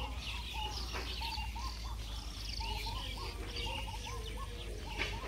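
Several birds calling together: many short chirping notes repeated over and over, with higher twittering above them.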